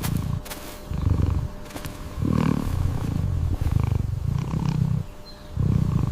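An animal's low, rough calls, about five in a row, each half a second to a second long.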